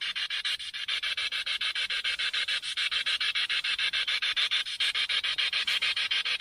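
SB7 spirit box sweeping through radio frequencies: a fast, even chopping of hissy static, about eight pulses a second.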